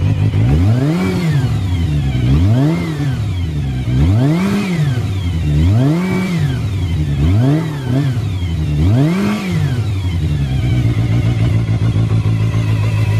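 Kawasaki Zephyr χ's 400 cc air-cooled inline-four idling through its stock muffler, blipped six times, each rev rising and falling over about a second, then settling back to a steady idle for the last few seconds.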